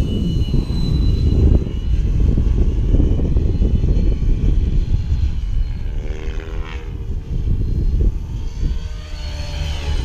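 Align T-Rex 550E electric RC helicopter flying overhead: the high whine of its motor and spinning rotor blades, the pitch bending up and down as it manoeuvres. Heavy wind rumble on the microphone runs under it.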